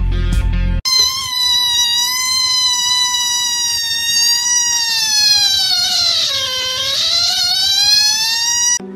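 A black kitten giving one long, high, drawn-out meow lasting several seconds. Its pitch holds fairly steady, dips lower about six seconds in, then climbs back before it breaks off.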